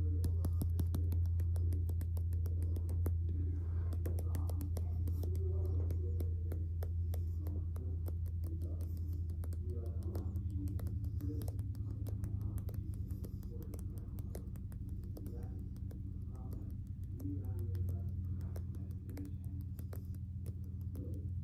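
Close-miked ASMR hand sounds: fingers and palms rubbing and moving right at the microphone, making dense, crispy crackles and clicks, over a steady low hum.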